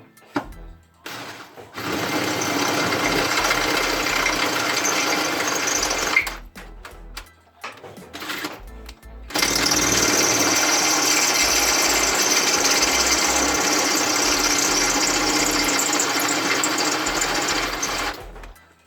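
A power tool running in two long runs, the first about four seconds and the second about eight seconds, with a steady rapid rattle.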